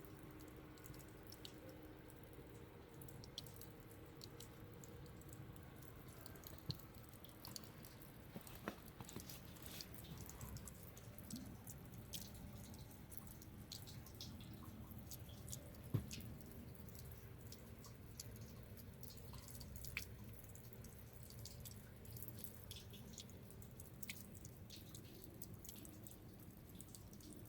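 Faint, quiet winter outdoor ambience: a low steady hum with scattered, irregular soft ticks and crackles, a few standing out slightly.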